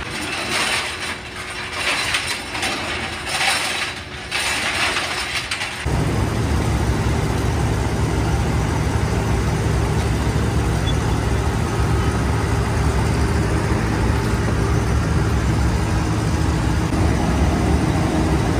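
Steel cultivator blades clattering irregularly inside a rotating steel tumbling drum. About six seconds in, the clatter stops abruptly and a steady, low machinery hum takes over.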